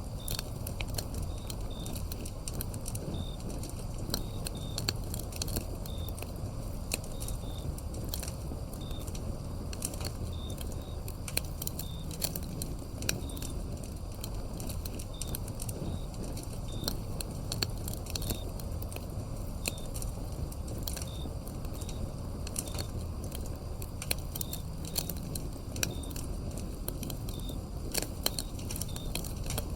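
Wood fire crackling and popping in many sharp snaps over a low steady rumble. Short high insect chirps sound faintly through it every second or so.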